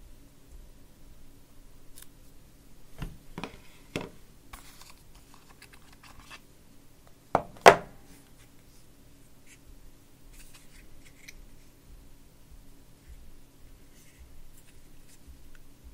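Hands handling and opening the hard white plastic case of Apple EarPods: a few sharp plastic clicks and taps, the loudest a quick double click about halfway through, then light scratching and ticking as the case's flap is worked open.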